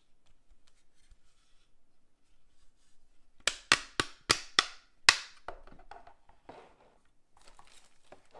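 Clear plastic wrapping torn in six sharp, quick rips about a third of a second apart, followed by softer crinkling of the plastic as it is handled.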